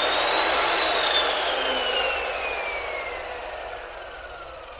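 Mitre saw's 2000 W electric motor running free at its higher speed setting, with no cut. Its whine peaks just under a second in, then falls steadily as the motor and blade spin down.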